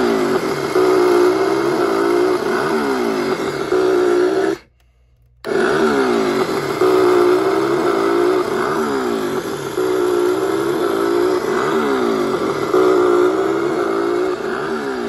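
Texas Chainsaw Massacre prop chainsaw playing its built-in electronic sound effect of a chainsaw engine, revving up and down over and over. It cuts out about four and a half seconds in and starts again under a second later.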